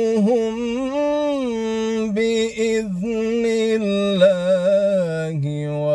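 A man's solo voice in melodic Quranic recitation (tajweed in a maqam), drawing out one long ornamented note with small turns, rising about a second in and stepping down to a lower note near the end.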